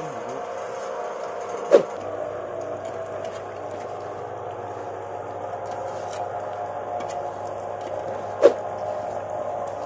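Small electric jamu press for rhizomes and leaves running steadily, its electric motor and worm-gear reducer turning the pressing screw with an even hum. Two sharp knocks, about seven seconds apart, are the loudest sounds.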